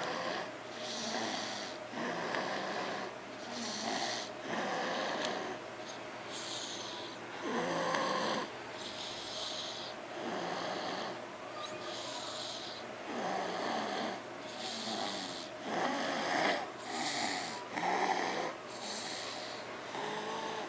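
Snoring: one rasping snore after another, a snore every second or two.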